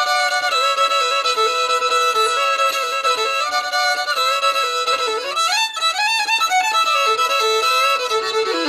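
Fiddle played solo with a bow: a tune of quickly changing notes, with a fast run sweeping up and then back down about five to six seconds in.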